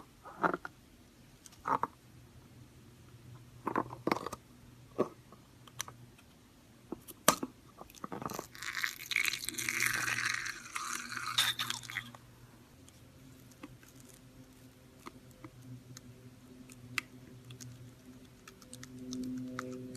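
Slime being pressed and squeezed by hand, crackling and popping in scattered clicks, with a denser stretch of crunching from about nine to twelve seconds in.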